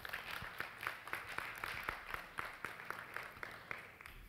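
Congregation applauding, a patter of many hands clapping that dies away near the end.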